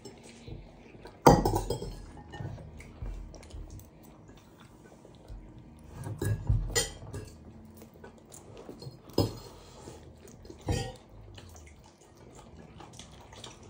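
Metal fork clinking and scraping against a ceramic dinner plate, with a few sharp clinks, the loudest about a second in and others around six, nine and eleven seconds.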